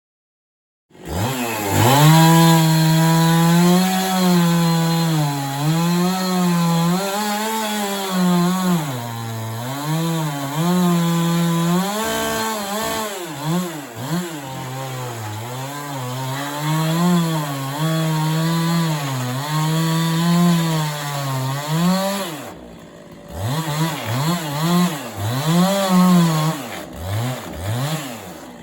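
Chainsaw cutting sawmill slabs, its engine pitch rising and falling over and over as it revs and bogs down in the wood. The engine drops off briefly about 22 seconds in, then revs again in quick bursts.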